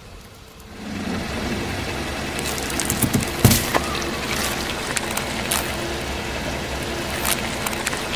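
About a second in, a car's engine running and a tyre rolling slowly on asphalt start up; a small paper packet and grit crackle under the tyre, with a sharp snap about three and a half seconds in and a few more clicks after it.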